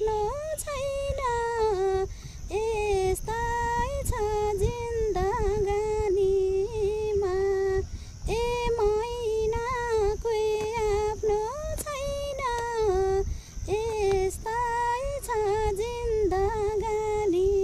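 A woman singing a Nepali folk song without accompaniment, in long held phrases with ornamented turns and short breaths between them, over a low background rumble.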